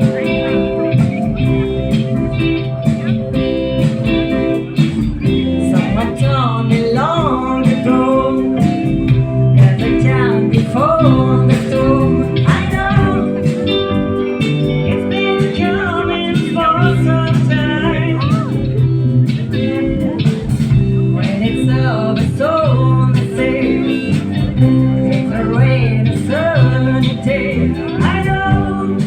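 Band music led by guitar, the lead line full of notes that bend up and fall back, over a steady held accompaniment.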